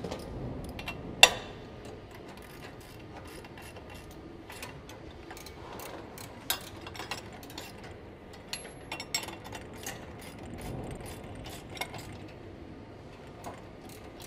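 Ratchet wrench clicking in short, irregular runs as the bolts fastening a conveyor belt cleaner's tensioner to its steel drop bracket are tightened. There is a sharp metal clink about a second in.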